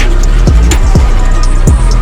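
Hip-hop beat with hi-hats and deep bass notes that slide down in pitch, three times in quick succession.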